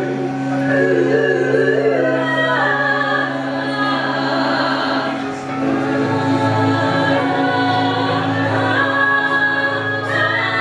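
A group of singers performing live, several voices holding long notes together, over a steady low hum.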